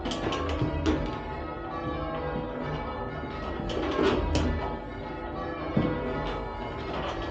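Full-circle church tower bells being rung down in rounds. The strikes come close together in overlapping runs, each bell's note ringing on into the next.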